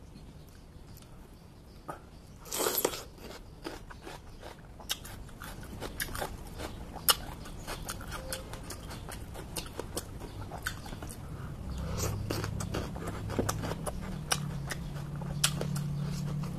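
Close-up chewing and biting of crisp raw vegetables: a run of sharp crunches, with a louder crunch about three seconds in. A low steady hum comes in about two-thirds of the way through.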